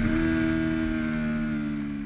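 Onboard sound of a small racing motorcycle's engine held at a steady pitch through a corner, with wind rush, fading out gradually.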